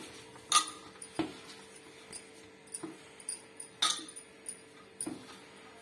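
Hands kneading mashed-potato dough in a steel plate: a few sharp clinks and taps spaced irregularly as fingers and bangles knock against the metal.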